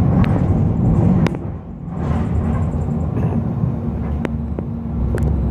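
Basel tram running on its rails, heard from inside the car: a steady low rumble with a few sharp clicks. The rumble drops off briefly about one and a half seconds in, then picks up again.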